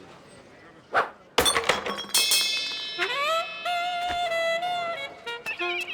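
Cartoon soundtrack music with sound effects: a sharp click about a second in and a loud crash just after, then several ringing tones that slide upward and hold, ending in a few short notes.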